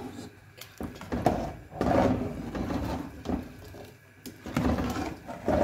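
Metal ladle stirring thick kadi with pakoras in a steel pot: irregular scrapes and knocks of the ladle against the pot, with soft sloshing of the curry.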